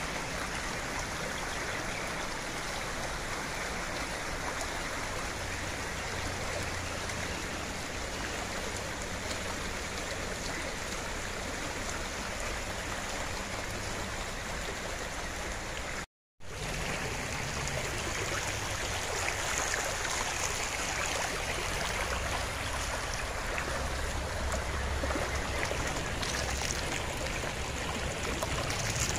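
Stream water rushing and splashing over rocks in a steady wash of noise, cut off for a moment about halfway through.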